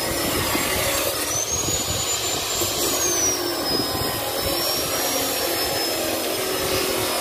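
Steady mechanical drone from a running machine, with a thin high whine that wavers up and down in pitch.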